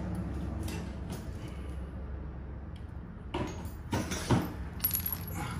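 A few short clicks and knocks of hand tools and small parts being handled, starting about three seconds in, over a steady low hum.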